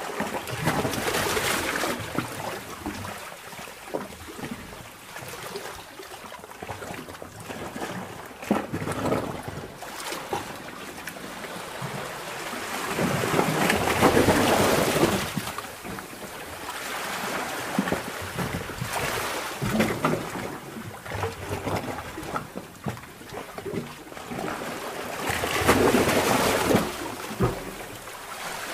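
Underwater sea-cave ambience: seawater surging and sloshing in slow swells, three of them about twelve seconds apart, with many small trickles and pops between.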